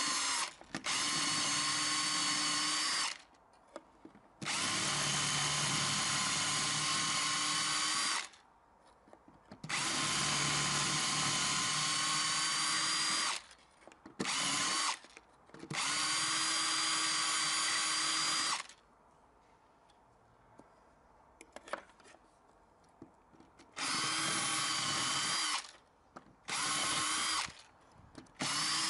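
Cordless drill with a 5 mm metal bit drilling the heads off the rivets of a window handle base. The motor whines steadily in about seven runs of one to four seconds with short pauses between, and a few faint clicks fall in a longer pause after the middle.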